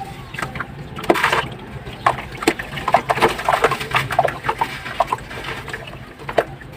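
Dry slab crumbling in water: a dense run of irregular crackles, small snaps and crunches.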